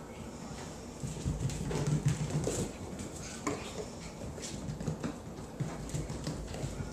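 Several puppies scampering and wrestling on a tile floor, their claws clicking and paws pattering in quick, irregular taps.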